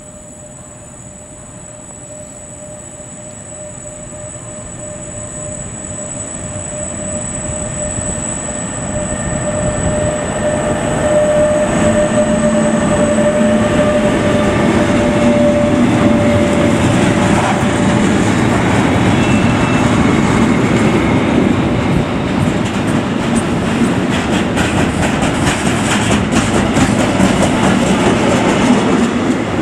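Electric locomotive hauling a long intermodal container freight train, approaching and then rolling past close by. It grows steadily louder into a loud rolling rumble, with a steady high whine during the approach. Near the end the wagons' wheels clatter over the rail joints.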